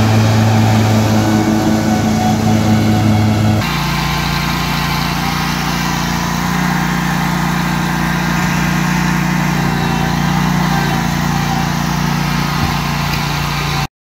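Kubota Z726X zero-turn mower's engine running steadily together with its attached grass-catcher vacuum blower. The hum changes abruptly to a lower, steadier pitch about three and a half seconds in, and the sound cuts off just before the end.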